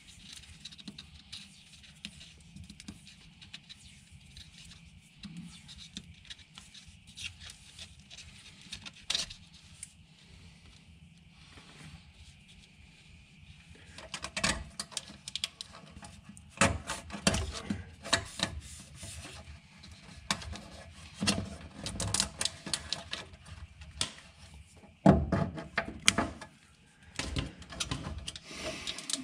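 Handling noise of wiring work: black plastic split corrugated conduit and cable rubbing, scraping and clicking against the aluminium tray as the reverse-camera cable is fed through. It is faint at first; about halfway it becomes a busy run of irregular clicks, knocks and scrapes.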